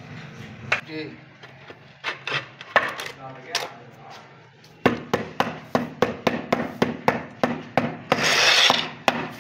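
Notched trowel scraping through cement tile adhesive, then from about halfway a rubber mallet tapping floor tiles down to bed them, about three knocks a second, with a short burst of scraping near the end.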